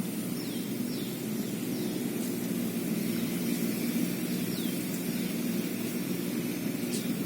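Steady low outdoor hum, with a few faint, short, falling bird chirps over it.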